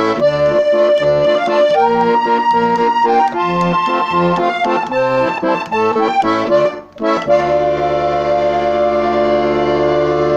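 Diatonic button accordion in musette tuning playing a waltz: a melody over a steady bass-and-chord beat. About seven seconds in it breaks off briefly, then holds one long sustained chord.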